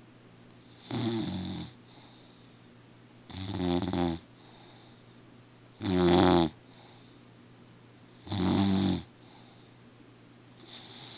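Steady rhythmic snoring, one snore about every two and a half seconds, five in all, the middle one loudest.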